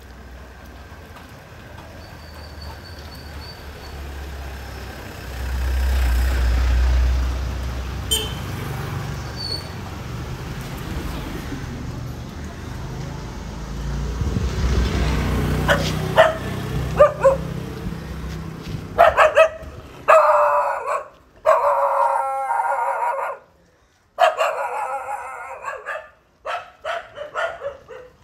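A dog barking repeatedly, starting about two-thirds of the way in and loudest near the end, with a couple of longer drawn-out howling barks among the short ones. Before the barking, a low rumble.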